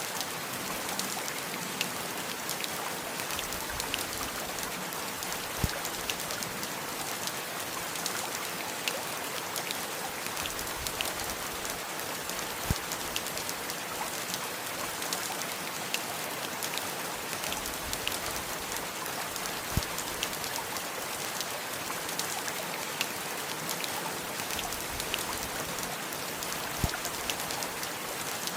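Steady rain with scattered drops ticking, and a heavier drip striking about every seven seconds.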